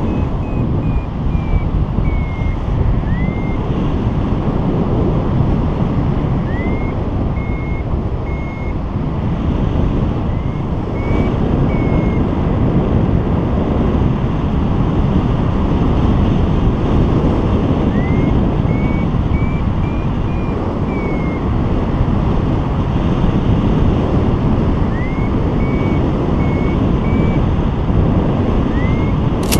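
Steady wind rushing over the microphone of a paraglider in flight, with a variometer sounding several runs of short high beeps that rise and fall in pitch, the climb tone that signals the wing is rising in lift.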